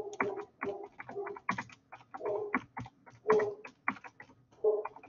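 Typing on a computer keyboard: a run of separate key clicks, with a few soft murmured voice sounds between them.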